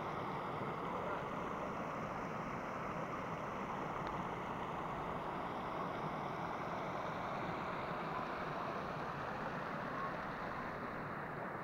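Steady rushing outdoor noise, even throughout with no distinct events.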